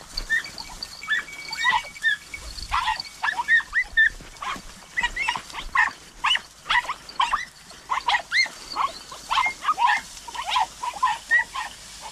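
Pack of young podenco hounds yelping in many short, high-pitched cries in quick succession while chasing a rabbit through the scrub.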